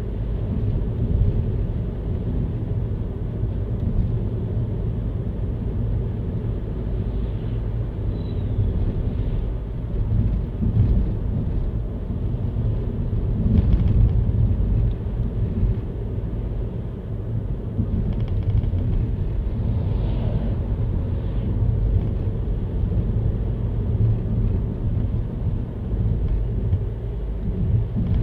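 Car driving along a road: a steady low rumble of tyre and engine noise with small swells in level.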